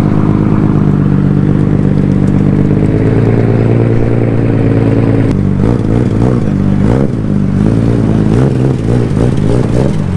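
Nissan R32 Skyline GT-R's RB26 twin-turbo straight-six running as the car pulls away at low speed: a steady engine note for about the first five seconds, then the pitch rising and falling with the throttle.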